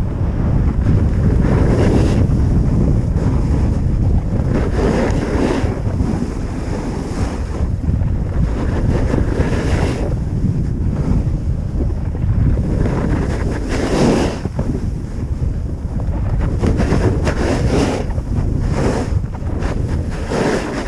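Wind buffeting the action camera's microphone on a fast run down a ski slope, a steady low rumble. Over it come repeated scraping swells of edges cutting into packed snow at each turn, the loudest about fourteen seconds in.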